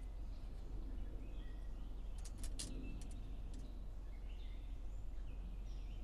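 Birds chirping in short repeated calls over a steady low hum, with a quick run of sharp clicks about two and a half seconds in.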